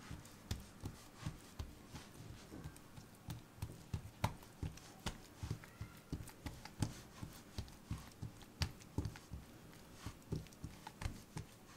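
Hands patting and pressing an oiled sheet of börek dough flat on a wooden board: a run of soft, uneven pats, two or three a second.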